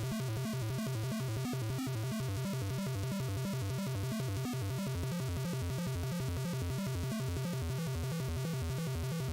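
Background music with a steady, evenly repeating beat.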